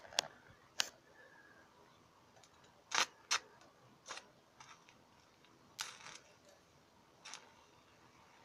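Stick-welding arc from an electrode fed directly by 24-volt solar panels, striking and dying in short sharp crackles and snaps a second or more apart instead of holding a steady buzz. The arc won't hold because the panels lack the voltage to sustain it, which the welder himself feels.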